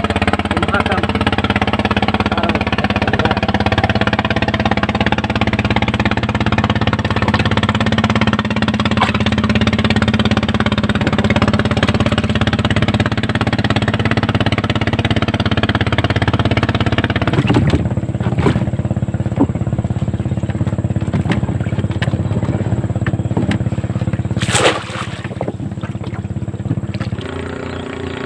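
A small engine running steadily. Its sound changes about two-thirds of the way through, there is one sharp click a few seconds later, and near the end it settles into a different, steadier note.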